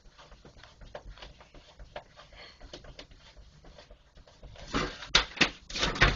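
Letters rustling and scraping in a door's mail slot as a cat paws and tugs at them, with faint clicks. Louder rustling and knocks come near the end as the mail falls through.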